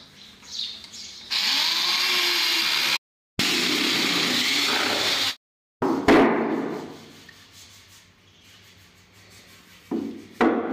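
Cordless drill driving a screw into a wall board, running steadily in two stretches of about two seconds each that stop abruptly. A sharp knock comes about six seconds in, and a few more knocks near the end.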